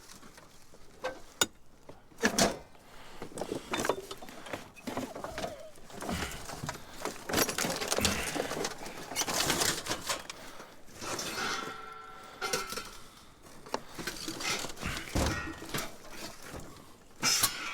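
Scrap being rummaged through and moved by hand in a dumpster: irregular knocks, clinks and rustling of metal and debris, with a brief squeak-like scrape about eleven seconds in.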